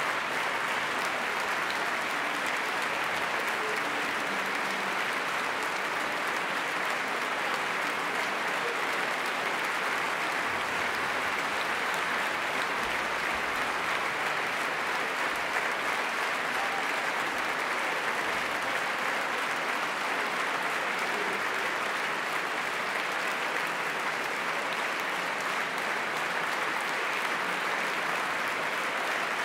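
Large concert-hall audience applauding steadily: a standing ovation.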